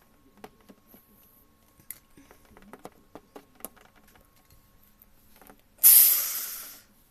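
Scattered small taps and clicks, then, about six seconds in, a loud hissing spray sound that lasts about a second and fades away.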